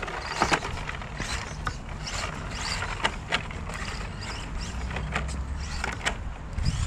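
Radio-controlled rally car knocking and rattling over rough, rutted dirt, with irregular clicks and knocks over a steady low rumble: its low body and bumper strike the bumps because ground clearance is poor.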